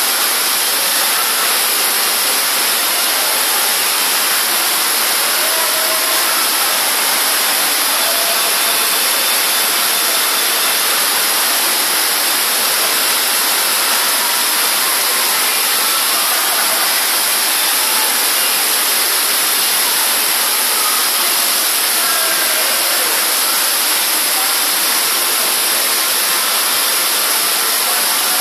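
Heavy rain on a factory roof, with water pouring through the roof onto the floor below: a steady, even rushing hiss that does not let up.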